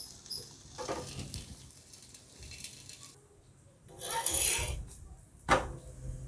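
Steel spoon and flat steel spatula scraping and clinking against a hot iron tawa as an aloo paratha is oiled and turned over. A brief scraping hiss comes about four seconds in as the spatula slides under the paratha, followed by one sharp metallic clack.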